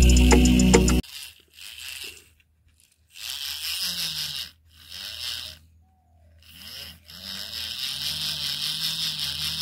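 Music for about the first second, then the small electric motor of a homemade toy vehicle whirring in short bursts that start and stop. From a little past the middle it runs steadily.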